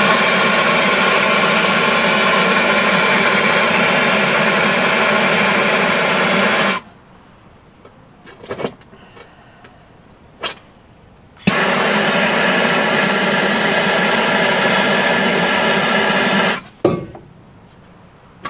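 Electric drill running at a steady speed, boring holes through sheet metal for seat bolts: two long runs of about seven and five seconds, with a few clicks and taps in the pause between them.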